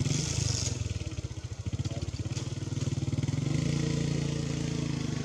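A motorcycle engine, coming in abruptly and then running steadily with a rapid putter, its pitch rising slightly about three and a half seconds in as it picks up revs.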